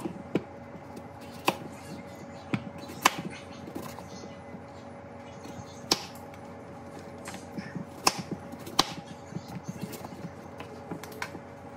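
Kitchen knife dicing red potatoes on a wooden cutting board: irregular sharp knocks of the blade striking the board, over a faint steady hum.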